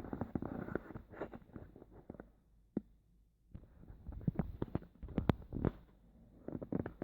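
Handling noise: a run of small, sharp clicks and knocks as things are moved and set down by hand, with a brief pause near the middle.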